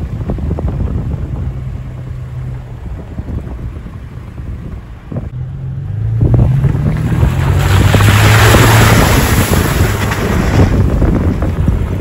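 Vehicle engine running as it drives along a dirt track, heard from inside the cab; about halfway through it accelerates and the engine note rises. Wind noise on the microphone swells loud for several seconds in the second half.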